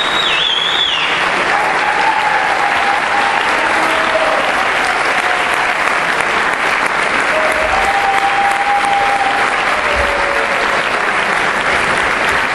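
Audience applauding steadily, with a high whistle about a second in.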